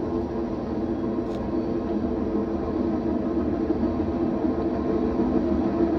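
A train passing on the tracks with a steady, even rumble.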